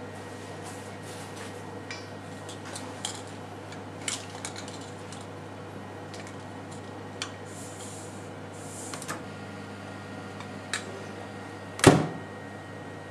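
Wooden chopsticks clicking and scraping against a stainless steel bowl as a pork roll is turned in its marinade, over a steady low hum. Near the end, one loud thud as the door of a Sharp Healsio steam oven is shut.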